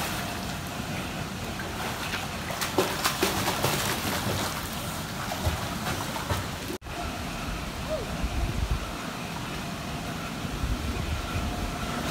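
Pool water splashing and sloshing as a young child kicks and swims. The splashing is busiest a few seconds in, and the sound cuts out for an instant about two-thirds of the way through.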